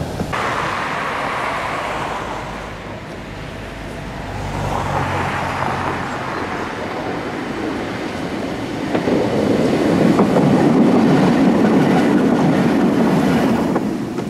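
Tatra KT8D5 articulated tram approaching and passing close by, its wheels rumbling on the rails with a few sharp clicks, loudest about ten seconds in and dropping away just before the end.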